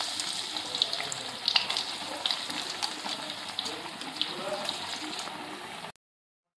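Battered cauliflower florets deep-frying in hot oil in a kadai: a steady sizzling hiss with scattered crackles and pops as pieces are dropped in. The sound stops abruptly about six seconds in.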